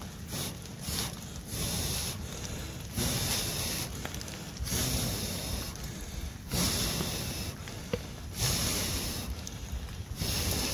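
A person blowing hard on the smouldering embers of a rain-soaked campfire to revive it: a series of long breaths, each about a second long with short pauses between.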